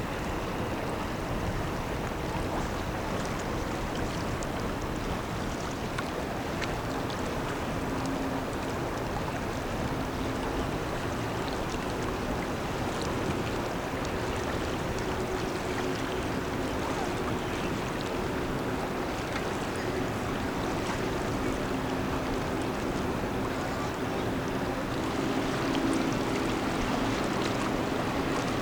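A small rescue boat's engine drones faintly over steady wind and water noise. The drone comes and goes and grows a little louder near the end.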